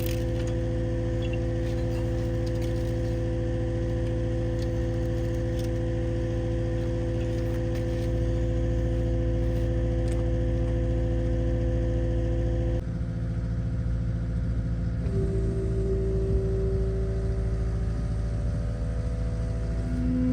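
An engine running steadily at constant speed. About 13 seconds in its sound changes abruptly, and a couple of seconds later a new, higher steady tone joins it.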